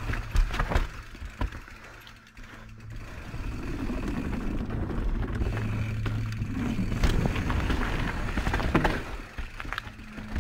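Mountain bike riding down rooty dirt singletrack: tyres rumbling over dirt, with sharp knocks and rattles of the bike over roots and wooden bridge planks. Several knocks come in the first second or so, then a steadier rumble with more knocks later.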